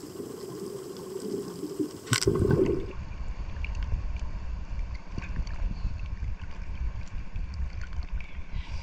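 Muffled underwater noise, then a brief splash about two seconds in, followed by small waves lapping and slapping around a camera held at the sea surface, with a low rumble of wind on the microphone.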